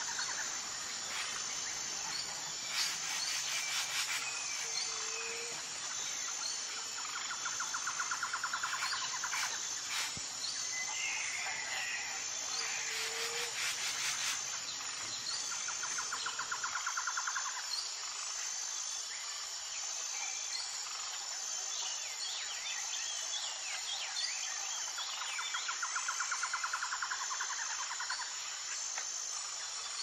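Forest ambience: a steady, high insect drone, with a pulsed, rattling insect trill that comes back every nine seconds or so. A few bird chirps sound over it, and a low background hum drops away about halfway through.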